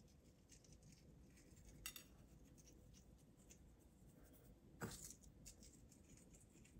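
Near silence with faint light scratches and ticks of salt being pinched from a small glass bowl and sprinkled by hand onto a raw steak, with two slightly louder ticks about two and five seconds in.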